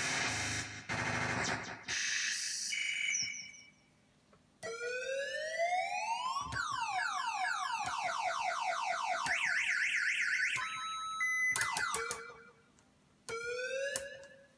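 Hand-built 'Big Dog' lickshot sound-effects box firing a string of electronic effects. It opens with a harsh noise blast, then gives rising and falling siren sweeps, rapid repeating laser-like zaps and a fast warbling tone, and ends with a short rising sweep.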